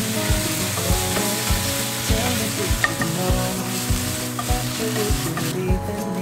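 Stir-fried egg, mushrooms and vegetables sizzling in a nonstick frying pan as a wooden spatula turns them, with scrapes of the spatula. The sizzling dies away near the end as the pan comes off the heat. Background music with a steady beat plays throughout.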